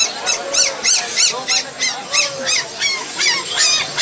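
A steady run of short, high-pitched rise-and-fall calls from an animal, about three a second.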